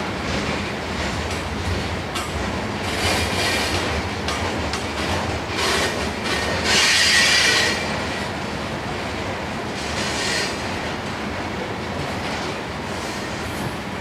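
Loaded coal cars of a freight train rolling past: a steady rumble of steel wheels on rail, broken by several bursts of high wheel squeal, the loudest a little past halfway.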